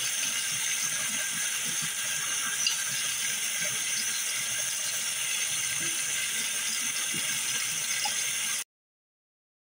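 Cold tap water running steadily into a stainless steel sink and colander, with a faint crackle of eggshell as a hard-boiled egg is peeled under it. The sound cuts off abruptly near the end.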